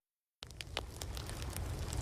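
Campfire crackling: quick irregular snaps and pops over a steady low rumble. It starts abruptly about half a second in and grows louder.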